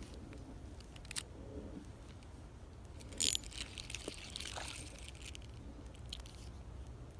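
Handling noise close to the microphone: a few small clicks and a short, sharp rustling scrape about three seconds in, trailing off into softer rustling.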